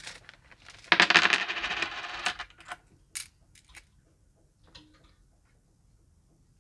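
A handful of euro cent coins jingling together in a hand for about a second and a half, then a few separate clinks as single coins are picked out.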